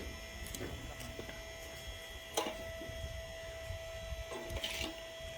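Hydraulic log splitter running with a steady hum and whine, with a sharp knock about two and a half seconds in and a short hiss near the end.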